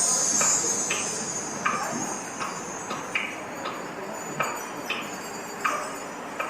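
Ticking-clock effect in the dance's backing music: short, evenly spaced ticks, a little under two a second, over a quiet bed. A high shimmering chime fades out at the start.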